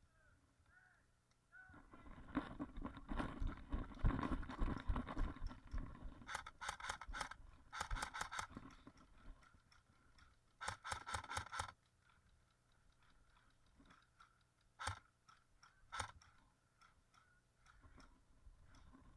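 Crunching steps through dry leaves and undergrowth, then three short bursts of rapid, evenly spaced shots and two single shots from an airsoft gun.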